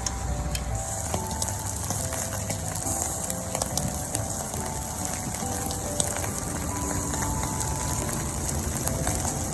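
Marinated beef short ribs sizzling on a charcoal grill: a steady hiss with scattered crackles and pops.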